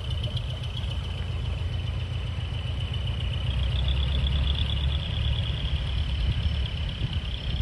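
Heavy truck's diesel engine running at low speed, a steady low rumble.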